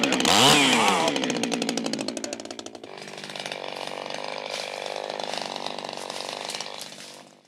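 Small red top-handle gasoline chainsaw revving, its pitch rising and falling in the first second, then dropping back. After about three seconds a steadier, quieter run of the saw follows.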